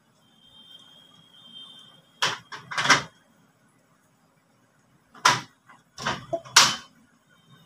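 Sharp knocks and bangs of things being handled at a cupboard: a cluster of three about two to three seconds in, and three more from about five to seven seconds in.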